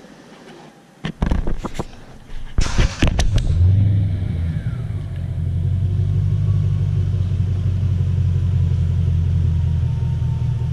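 Lexus GS400's 4.0-litre 1UZ-FE V8, heard from the exhaust at the rear, being started: after a few knocks it fires about two and a half seconds in and settles into a steady low idle.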